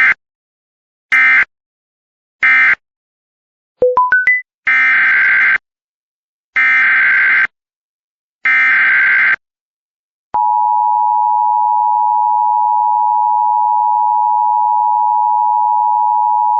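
Emergency Alert System broadcast audio. Three short buzzing data bursts (the end-of-message code closing the previous alert) are followed about four seconds in by a quick rising run of four beeps. Then come three longer SAME header data bursts, and about ten seconds in the steady, piercing two-tone EAS attention signal starts and holds.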